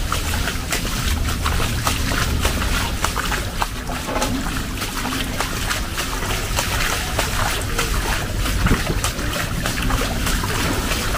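Heavy rain falling and splashing, a dense steady hiss full of sharp close drop hits over a low rumble.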